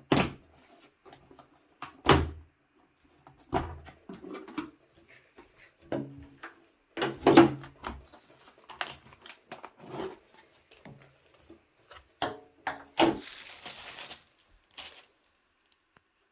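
Kitchen handling sounds: a string of irregular knocks and clunks as things are set down and moved, some with a dull thud, with about a second of hiss near the end.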